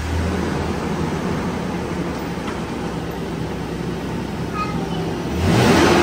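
2023 Toyota 4Runner's 4.0-litre V6 idling through its stock factory exhaust, just after a start-up. It gets louder for a moment near the end as the revs rise.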